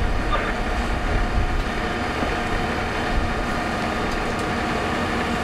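Fire apparatus engines running in a steady, even drone.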